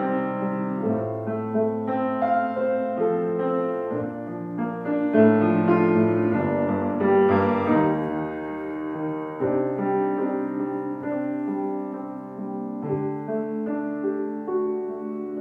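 Background music led by piano, with sustained chords and notes changing every second or so.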